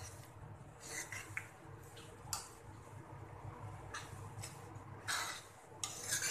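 Steel ladle scraping and clinking against a metal kadhai as thick dal is stirred, in scattered short scrapes and taps over a low steady hum.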